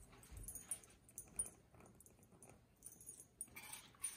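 Faint sounds of a dog moving close by: scattered soft clicks and rustles, with a short hiss of rustling near the end.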